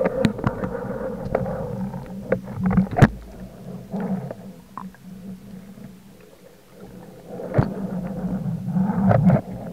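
Underwater noise of a freediver moving fast with a speargun: water rushing and bubbling over the camera housing in two spells, with sharp clicks and knocks, the loudest knock about three seconds in.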